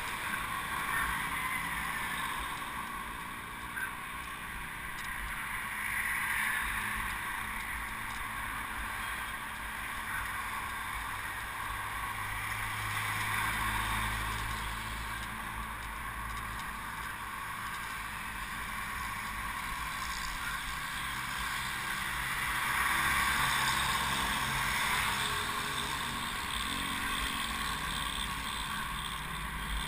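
Road traffic heard from a moving bicycle: motorcycle and other vehicle engines passing close by, swelling and fading several times over a steady road rumble.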